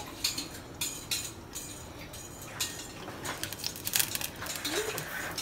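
Okra frying in hot oil in a clay pot: irregular crackling and spattering pops over a faint high sizzle.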